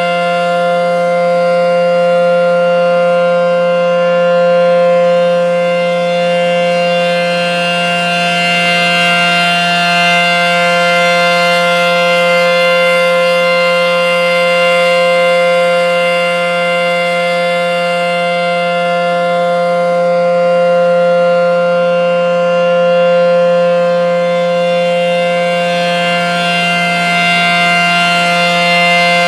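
ACA P-10 rotating outdoor warning siren sounding a steady alert tone, heard from directly below: several tones sound together at a constant pitch. The loudness swells and eases slowly as the horn turns.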